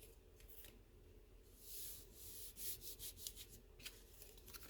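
Faint rustling and rubbing of cardstock being handled and pressed down, in several short soft swishes with a few light taps from about a second and a half in.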